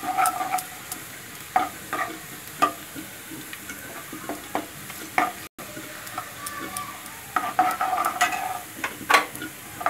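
Chopped garlic and cumin seeds sizzling in hot ghee in a kadhai, stirred with a steel spoon that scrapes and knocks against the pan again and again. The tempering is being fried until golden brown.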